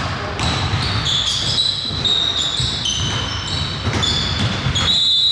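Basketball being dribbled on a hardwood gym floor, a series of bounces, with sneakers squeaking on the court as players move.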